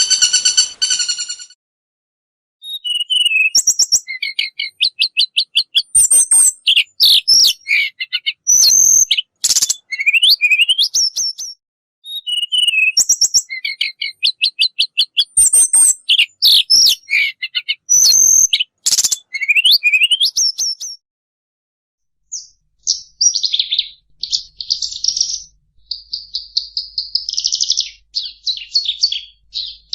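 A songbird sings loud, varied whistled phrases of rapid notes, slurs and glides. The same sequence of phrases plays twice in a row, then gives way to fast, buzzy chattering trills. A steady pitched tone is heard briefly at the very start.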